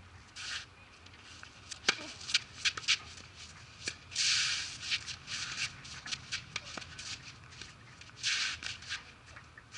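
Tennis shoes scuffing and sliding on a red clay-type court, three short scrapes among scattered sharp clicks of tennis balls being struck and bouncing.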